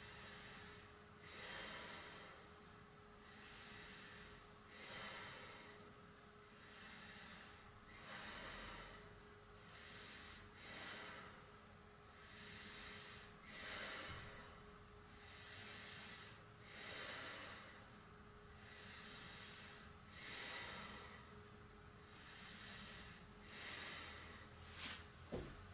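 Faint, slow breathing of a person holding a half-locust yoga pose, one breath about every one and a half to two seconds. A couple of sharp knocks near the end.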